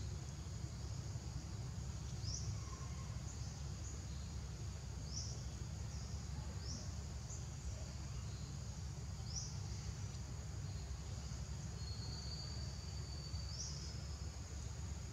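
Steady high-pitched insect chorus with short rising chirps repeating every couple of seconds, over a steady low rumble.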